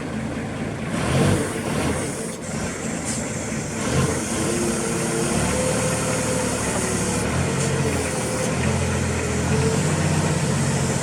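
Diesel engine of a 2006 Cat DP40K forklift running, its note getting heavier and louder about four seconds in.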